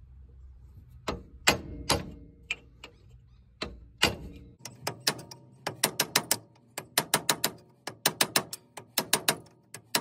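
Hand ratchet wrench clicking as it is swung back and forth, tightening the bolts of a homemade wheel hub puller. A few separate clicks come first, then quick runs of several clicks a second from about halfway on.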